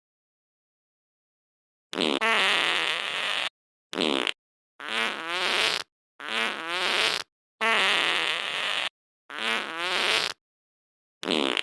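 Parrot making a run of loud, raspy fart-like noises: six bursts, each about a second long, with a wavering, buzzing pitch and short silent gaps between them. A seventh burst starts right at the end.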